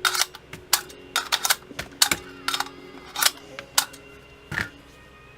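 Metal parts of an AR-15 rifle clicking and clacking against each other as it is assembled by hand: about a dozen sharp, irregular clicks, the last one a little before the end.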